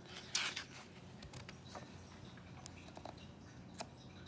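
A picture-book page being turned: a short paper swish about half a second in, followed by a few faint clicks of handling.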